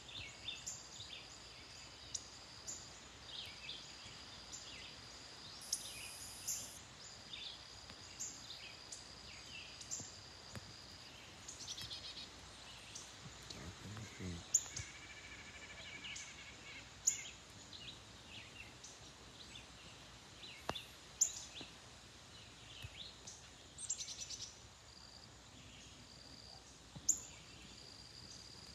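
Birds chirping and calling in short, scattered phrases over a steady high-pitched buzz that drops out now and then.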